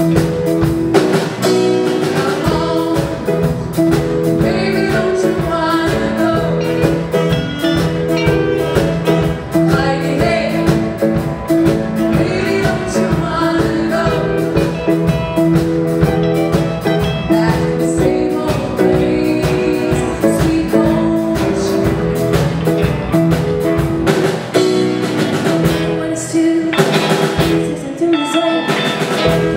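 Two women singing into microphones over a live band with drum kit and guitar, a steady beat throughout.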